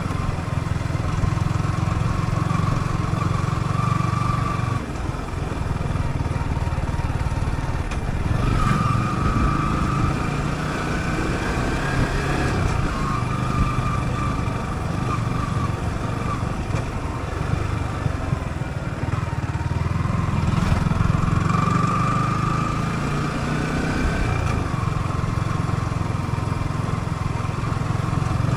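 Yamaha YZF-R15's single-cylinder four-stroke engine running while ridden, the revs rising and falling a few times as the throttle is worked.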